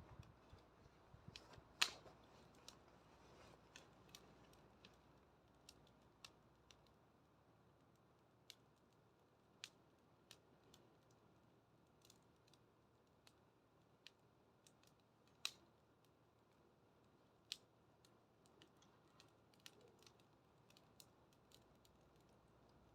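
Wood bonfire crackling: sparse, irregular sharp pops and snaps over a faint steady hiss, the loudest snap about two seconds in.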